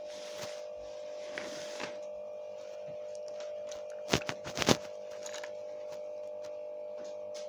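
Small plastic toy figurines clacking against each other in a box, a quick cluster of sharp clicks about four seconds in, over a steady hum.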